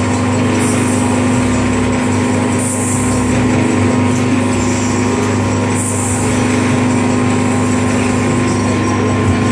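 Hydraulic power unit of a gallon-cap moulding machine running, its electric motor and pump giving a steady loud hum, with two brief hisses about three and six seconds in.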